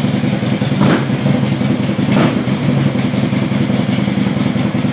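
Harley-Davidson Ultra Classic motorcycle's V-twin engine idling steadily, with two brief louder rushes of noise about one and two seconds in.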